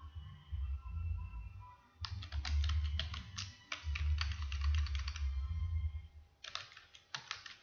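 Typing on a computer keyboard: a quick run of keystrokes for about three seconds, a short pause, then another brief burst of key taps near the end. A low, uneven rumble sits underneath.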